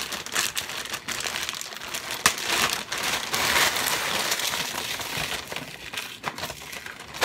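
A plastic freezer bag crinkles and rustles as hands squeeze and shake the frozen chopped green onions inside, crumbling them apart, with many small crackles and one sharper snap a little past two seconds.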